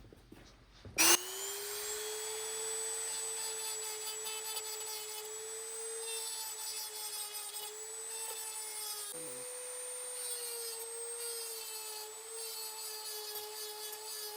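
Small electric power tool motor starting with a sudden whine about a second in and quickly spinning up to a steady high pitch. Its pitch drops briefly about nine seconds in, then it runs on.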